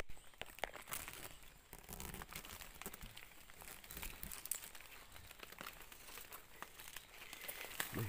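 Footsteps crunching and rustling through dry leaf litter and undergrowth, a string of irregular faint crackles and crinkles.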